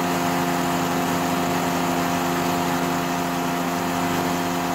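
An airboat's RMZ-500 two-stroke twin engine running steadily at an even speed, with no revving.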